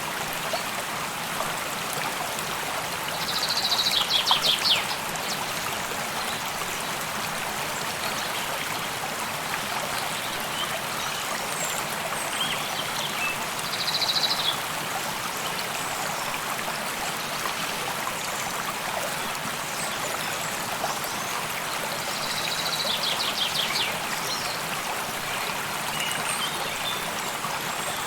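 Stream running steadily, with a bird giving a short high trill three times (a few seconds in, about halfway and near the end) and a few faint chirps between.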